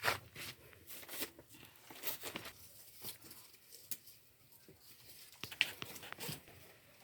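Irregular rustling and crinkling with small clicks, the loudest right at the start, like something being handled or torn.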